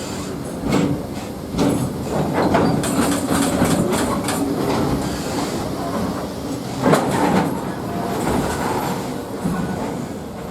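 Railway wagons rolling past with the clickety-clack of wheels over rail joints, and one loud clank about seven seconds in.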